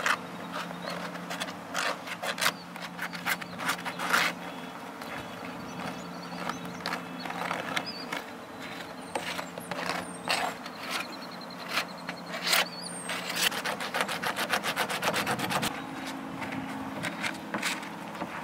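Frottage rubbing: a hand-held stick scraping over a pigmented sheet draped on a car's body, in irregular short strokes with a quick run of rapid strokes about two thirds of the way through. A steady low hum runs underneath.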